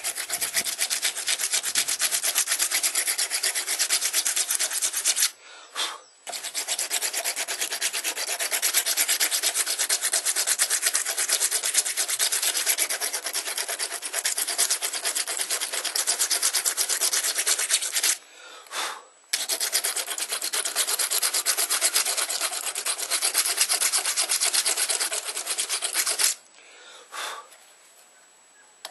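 Steel half tang of a hand-forged knife blade being cleaned up by hand, a fast continuous rasping scrub of abrasive on metal. It pauses twice briefly and stops a few seconds before the end.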